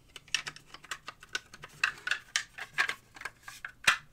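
Hard plastic and metal clicking and scraping in an irregular run as a metal flashlight tube is pushed and turned inside the plastic housing of a Craftsman 2.4V cordless screwdriver, with one sharper knock near the end.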